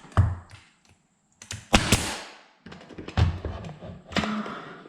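A few sharp knocks as a length of crown molding is tacked in place against the ceiling, the loudest just under two seconds in, followed by a brief hiss.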